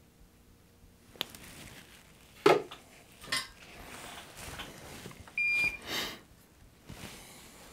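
Small metal hand tools clattering and knocking on a workbench, with a sharp clack about two and a half seconds in and several softer knocks. A short electronic beep sounds a little after five seconds.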